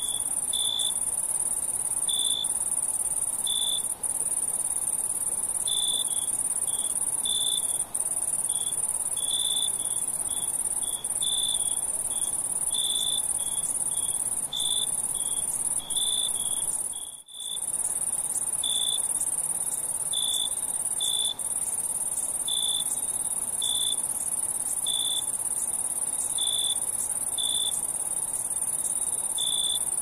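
Chorus of crickets: a steady high trill with louder short chirps over it, roughly one a second at uneven spacing. The sound cuts out briefly about halfway through.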